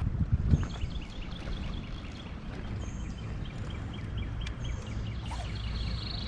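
Rapid series of short, high animal chirps, several a second, over a steady low rumble, with a couple of knocks in the first second.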